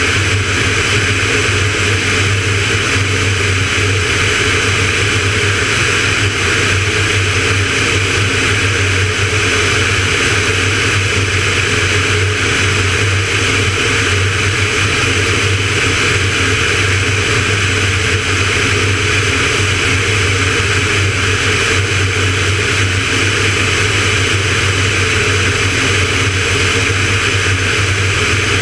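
Van's RV-9A's piston engine and propeller running steadily in flight: a deep hum under a constant rush of air.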